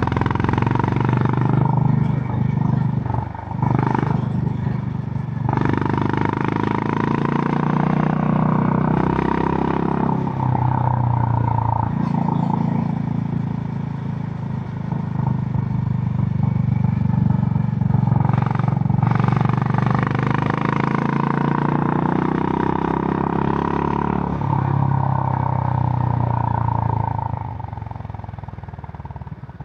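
Honda GB350's air-cooled single-cylinder engine running through its stock exhaust under way, its pitch rising and falling with throttle and gear changes. It dies away over the last few seconds.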